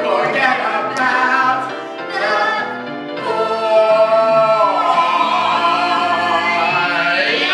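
A group of voices singing together in a stage musical number, with a long held note in the middle that slides downward.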